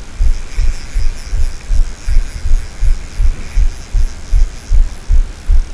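Regular low thumps, about two to three a second, knocking on the microphone of a body-worn camera.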